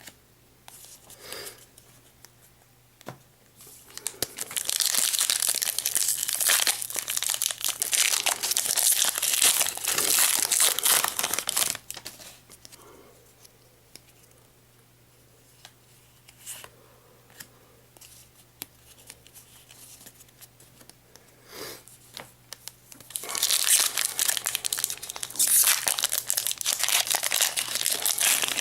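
Foil wrapper of a Pokémon booster pack being torn open and crinkled, in two long bouts with a few light clicks and rustles between them.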